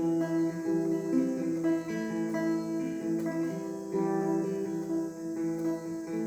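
Delta Po Boy tenor archtop guitar playing a run of chords that change every half second or so, heard through a small amplifier. The new strings have not settled, so it is slightly out of tune.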